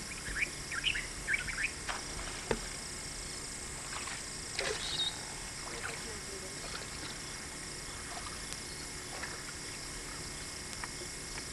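Reed-bed wetland ambience with a steady hiss and faint high steady tones. It has a quick run of five or so short bird-like chirps in the first second or two, a couple of sharp knocks soon after, and a few brief scattered calls in the middle.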